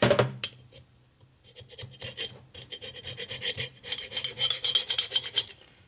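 Hand scraper blade scraping over the thin black coating on an engine cylinder: a rapid series of short rasping strokes, heaviest in the second half.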